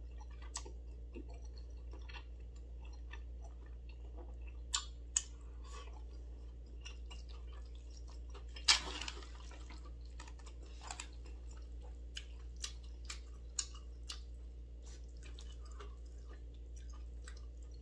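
Chopsticks mixing jjolmyeon noodles through their sauce in a bowl: scattered soft wet squelches and clicks, the loudest about nine seconds in, over a faint steady hum.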